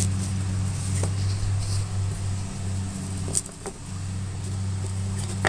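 Steady low hum, over a few light knocks of cut-out aromatic cedar puzzle pieces being handled: one about a second in and a couple a little past the middle.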